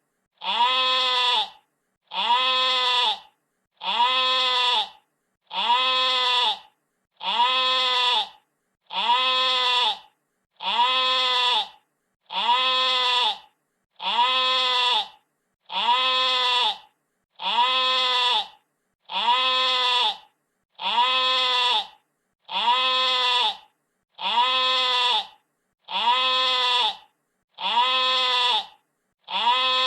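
Sheep bleating: the same single bleat repeated over and over, about once every second and a half, each call a little over a second long and rising then falling slightly in pitch.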